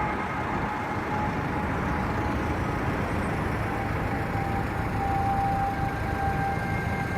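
Christmas street lights giving off an ear-piercing electrical whine: several steady held tones over the steady rumble of city street traffic.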